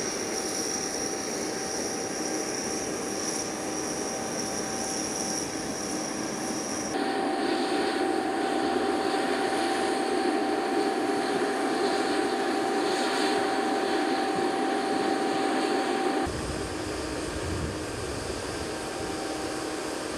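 Steady whine and rushing noise of jet aircraft engines on an airfield apron. It changes abruptly twice, growing louder about seven seconds in and dropping back about sixteen seconds in.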